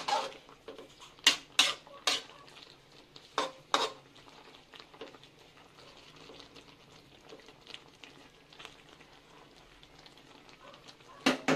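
Slotted metal spatula stirring a thick pork stew in a wok-style pan, scraping and knocking against the pan in a run of sharp strokes in the first four seconds and again near the end, with a quieter stretch in between.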